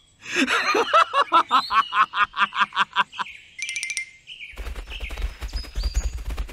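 A laugh: a rapid string of even 'ha' pulses, about five a second, for roughly three seconds. A short high tone follows, then a low rumble with clicking from about four and a half seconds in.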